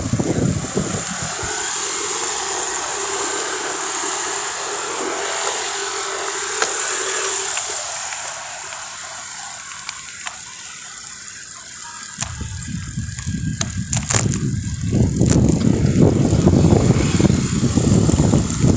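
Wind buffeting the microphone of a moving rider, turning into a loud rumble about twelve seconds in as the speed picks up; before that, softer street and road noise with a steady hiss.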